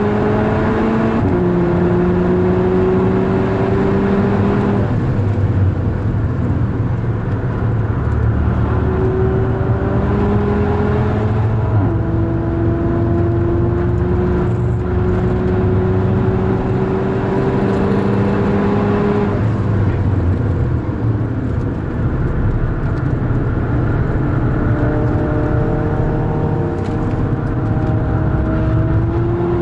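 Onboard sound of a VW Golf 6R's turbocharged 2.0-litre four-cylinder engine driven hard on track. The engine note rises under load and drops several times at gear changes and lifts, with one long pull from about 12 to 19 seconds in.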